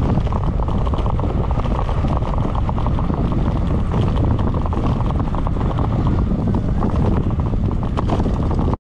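Wind buffeting the microphone of a GoPro camera mounted on a moving bicycle's handlebars, a loud, steady low rumble.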